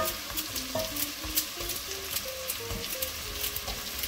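Sliced onion and carrot sizzling and crackling in hot olive oil in a pot, with frequent small pops, over soft background music.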